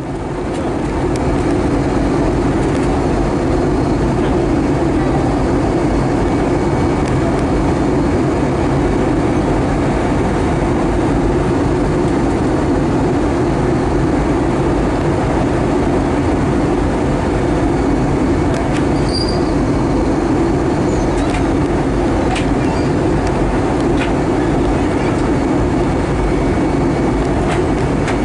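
Airbus A320 cabin noise during descent: a steady drone of the jet engines and rushing airflow, heard from inside the cabin at a window seat over the wing.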